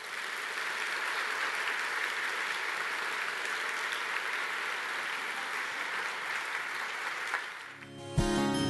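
Audience applauding steadily, dying away about seven and a half seconds in; music starts up just before the end.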